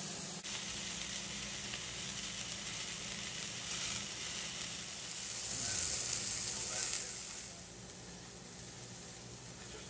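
Venison steaks sizzling in a hot cast iron skillet: a steady frying hiss that drops to a softer sizzle for the last couple of seconds.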